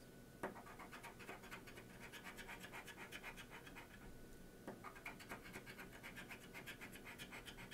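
Lottery scratch-off ticket being scratched: rapid, faint short strokes scraping the latex coating off the card.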